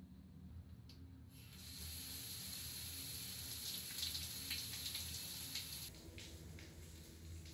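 Handheld shower head spraying water against the shower booth wall, coming on about a second in as a steady hiss. The rush eases about six seconds in, leaving scattered spattering drips.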